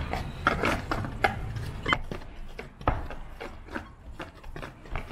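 Paint roller being worked back and forth in a paint tray, loading its nap with gray base-coat paint: a string of irregular wet rubbing and clicking strokes that thin out toward the end.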